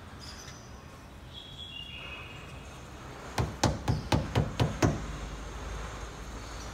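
Rubber mallet tapping a rubber edge-guard strip onto a car door's edge: seven quick knocks in about a second and a half, a little past halfway through.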